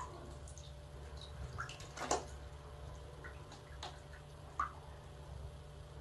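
Small splashes and drips of water in a plastic basin as a cat paws at it: a handful of separate plops, the loudest about two seconds in, over a low steady hum.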